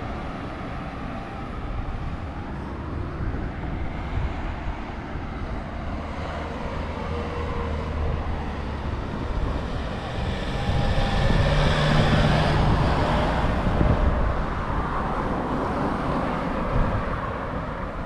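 Road traffic noise with a low rumble throughout; a passing vehicle gets louder, loudest about twelve seconds in, then fades.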